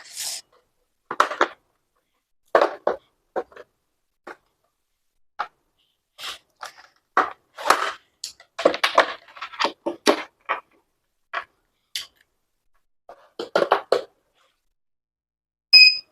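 Handling noise from plastic robotics-kit blocks and cables being plugged together: scattered clicks, taps and rustles. A short high beep sounds just before the end.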